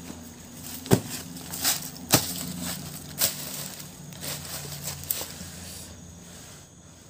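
Dry fallen leaves crunching and crackling under hands and bodies moving on the ground: about five sharp crackles spread over the first five seconds, over a low steady hum that fades near the end.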